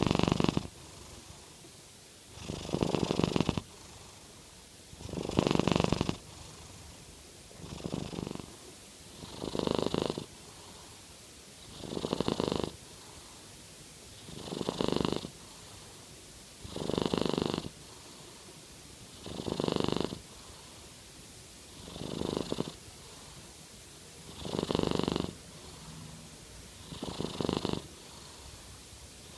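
Sleeping Norwegian Forest Cat purr-snoring: a snoring purr that comes in bursts about a second long, roughly every two and a half seconds, with quiet gaps between.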